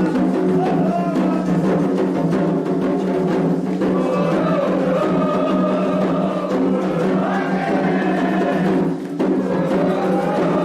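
Candomblé toque for Ossain: hand drums (atabaques) beating a fast, dense rhythm under voices chanting together. The sound drops off briefly about nine seconds in.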